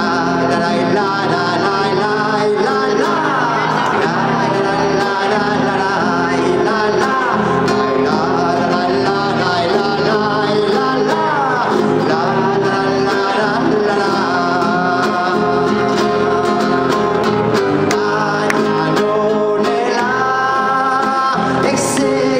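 Live Mexican ranchera-style song: a man singing to acoustic guitar accompaniment, amplified through stage speakers.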